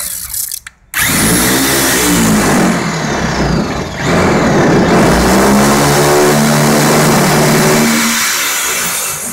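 Handheld power sheet-metal cutter running and cutting into a car's steel roof panel: a harsh motor-and-cutting noise whose pitch wavers as the tool bites into the metal. The sound drops out briefly about half a second in.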